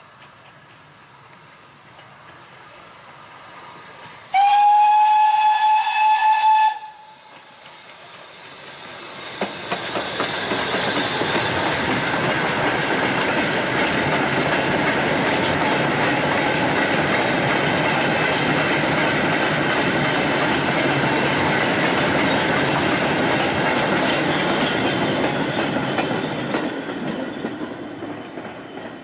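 Steam locomotive whistle sounding one blast of about two seconds, its pitch sliding up slightly as it opens. Then a train passes close by, loud and steady, building over a couple of seconds and fading away near the end.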